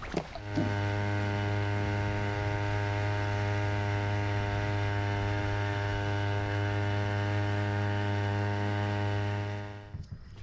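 Electric trolling motor driving a kayak at a steady speed: an even, unchanging hum that starts about half a second in and stops near the end.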